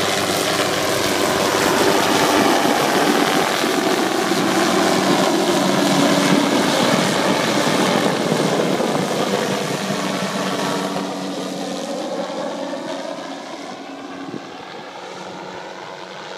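MD 500-type light turbine helicopter making a low pass: rotor and turbine sound loud and close, then fading steadily from about two-thirds of the way through as it flies off, its whine gliding in pitch as it goes by.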